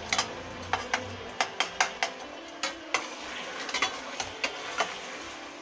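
Metal spatula stirring chicken pieces in a stainless-steel pot, scraping and clinking irregularly against the sides, over a steady sizzle of the oil frying.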